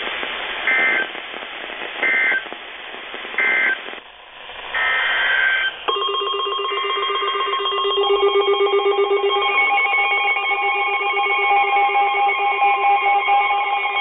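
Emergency Alert System (SAME) data tones from NOAA weather radio receivers: three short, shrill digital bursts about a second and a half apart, the end-of-message code after the flood statement, then a longer data burst about five seconds in. From about six seconds, several weather alert radios sound at once: a steady alert tone with pulsing beeps layered over it.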